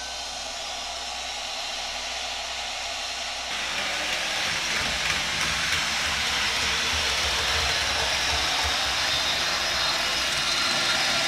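N scale Rapido Turbo Train running at full throttle, its LokSound sound decoder playing the gas-turbine sound of the prototype through the model's small speaker, together with the model rolling on the track. The sound grows louder and fuller about three and a half seconds in.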